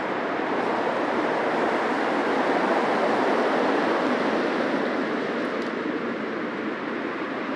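Busy city street traffic: a steady wash of car engine and tyre noise, with a vehicle passing and swelling louder about two to four seconds in.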